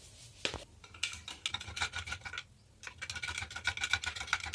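A steel spoon stirring sugar into a sattu drink in a glass mug, clinking rapidly against the glass with a light ring. A single tap comes about half a second in, then two spells of fast clinking with a short pause between.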